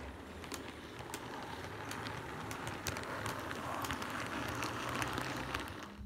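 H0-scale model ChME3 diesel shunter running on Trix C-track: a steady motor and wheel rush with scattered clicks from the wheels over the rail joints. It grows louder as the locomotive passes, then cuts off suddenly near the end.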